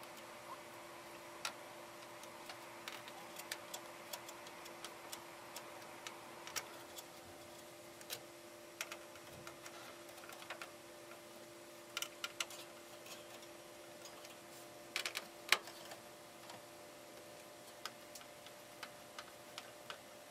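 Light, irregular clicks and taps of small metal parts being handled while fitting a motherboard into a PC case, with a louder cluster of clicks about fifteen seconds in. A steady hum runs underneath.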